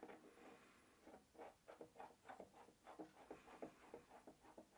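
Faint metallic ticking and scraping of an M12 steel threaded rod being turned by hand into a threaded steel adapter, about five small ticks a second.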